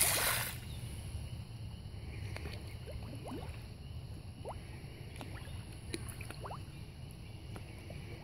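A splash at the pond surface from a large fish, loudest in the first half second. Then a steady low rumble with faint, short rising chirps now and then.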